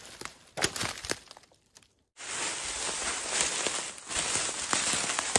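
Dry leaves and twigs crackling and rustling. After a short gap, footsteps crunch through dry leaf litter over a steady rushing background.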